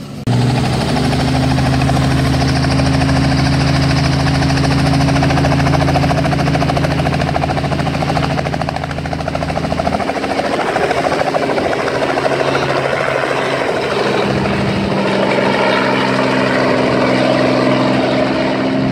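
Robinson R44 helicopter's rotor and engine running at lift-off power as it takes off and flies away, a loud steady drone that wavers about halfway through and steadies again.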